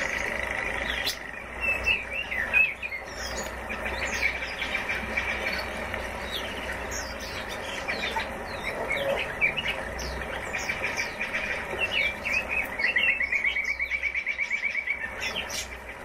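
Several cage birds, among them red-billed leiothrix, chirping and calling in short, rapid notes, with a fast rattling trill of about ten notes a second near the end.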